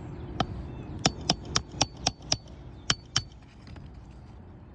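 A hammer striking metal: about nine quick, sharp blows with a short metallic ring, most of them about a quarter second apart, then a pause and two more.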